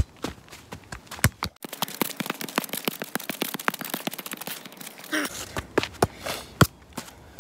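A football being kicked up and trapped with the feet: sharp single touches about a second apart. In the middle comes a few-second stretch of rapid, even ticking with the deep end cut away.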